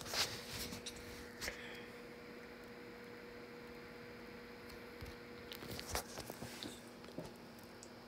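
Quiet room tone with a steady low electrical hum, broken by a few faint clicks and rustles of handling.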